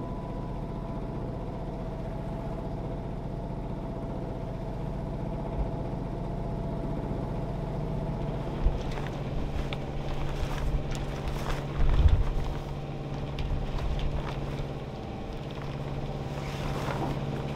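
Catalina 30 sailboat's inboard engine running steadily under way, an even hum. From about halfway, scattered knocks and rustles join it, with a heavier low thump about two-thirds in.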